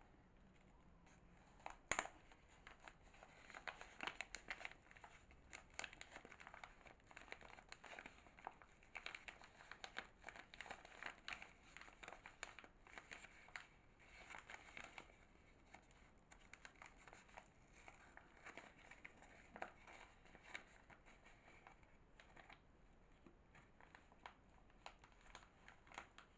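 Soap packaging being unwrapped by hand, a quiet run of crinkling and crackling with a sharp click about two seconds in.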